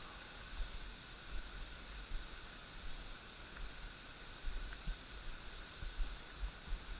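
Steady hiss of distant rushing water from the waterfall and river, with irregular low thumps on the microphone.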